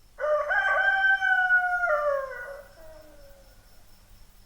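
An animal's long howl: one call that holds its pitch for about two seconds, then slides down and fades away.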